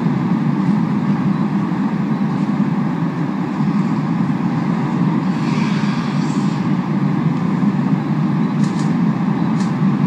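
Steady low rumble of an ice-rink arena's ambience, with a brief higher hiss near the middle and a few faint clicks near the end.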